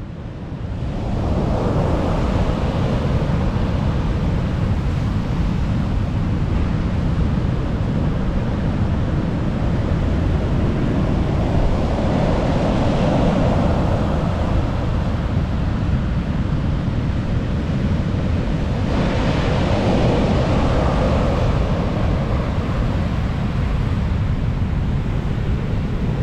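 Big sea waves breaking on a beach, the surf swelling louder about two, thirteen and twenty seconds in, with heavy wind rumble on the microphone throughout.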